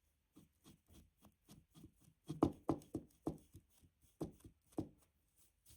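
A paintbrush dabbing watered-down paint onto a scrap-wood 2x4: a run of light taps on the wood, about three a second, louder in the middle.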